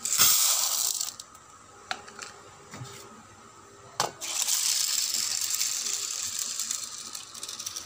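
Dry chana dal (split Bengal gram) poured from a measuring cup into a bowl, a rattling rush in the first second, then a few light clicks. From about four seconds in, water is poured over the lentils in a steady splashing stream to soak them.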